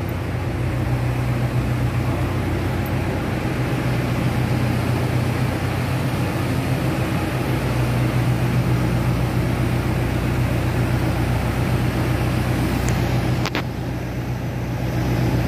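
A vehicle engine idling, a steady low drone, with one sharp click about thirteen seconds in.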